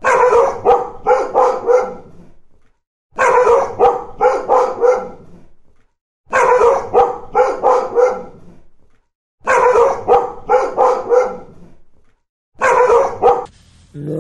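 A dog barking in five bouts of about five quick barks each, a bout every three seconds or so, with silence between.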